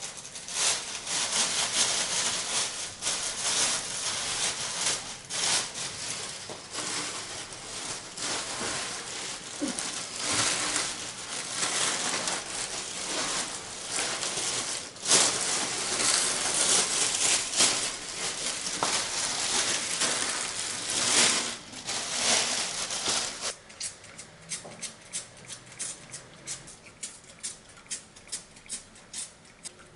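Sheets of newspaper rustling and crinkling as they are gathered up off a floor. Then, a little over three-quarters of the way in, a trigger spray bottle squirting in a quick series of short sprays, two or three a second.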